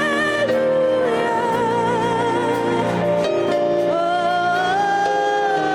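Gospel worship music: a woman singing long, held notes with a wavering vibrato, sliding up to a higher note about four seconds in, over steady sustained accompaniment chords.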